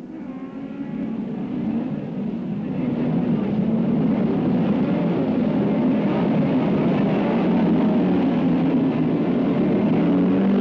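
Engines of a pack of racing saloon cars at speed, fading in over the first few seconds and then running loud and steady, the engine note wavering up and down as the cars pass.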